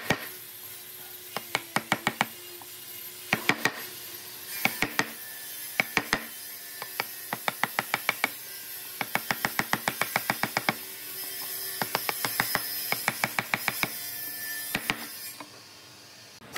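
A steel chisel jabbed repeatedly into the edge of an old railway sleeper board, chipping off rotten wood and bark: quick sharp taps with a slight ring, in bursts of about six a second with short pauses between.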